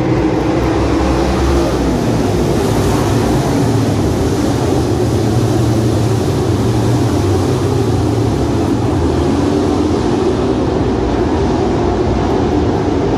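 Several race car engines running laps of a dirt oval, heard as a steady, loud din from the grandstand.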